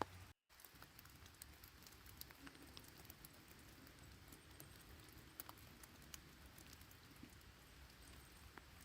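Light rain falling, a soft steady hiss with scattered drops ticking irregularly. It breaks off for an instant about half a second in.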